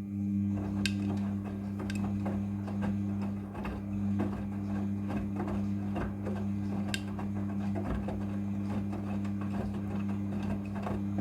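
Front-loading washing machine running a wash cycle: a steady motor hum with scattered soft clicks and knocks as the drum turns the load.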